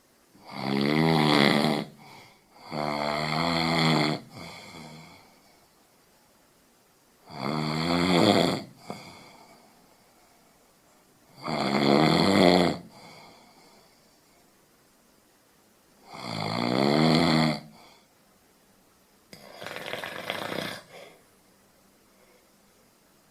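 A person snoring: six snores in about twenty seconds, each lasting a second or so, the first two close together and the last one quieter.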